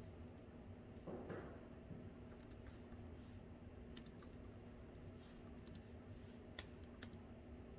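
Faint typing on a laptop keyboard: scattered light key clicks over a steady low hum of room tone. A short, soft, louder noise comes about a second in.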